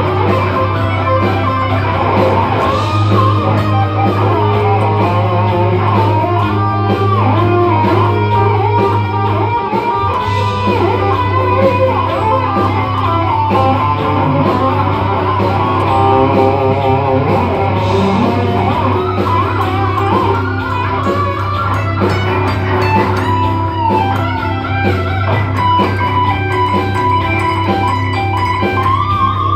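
Guitar music: an electric guitar plays a melodic line with bent and wavering notes over a sustained low bass note.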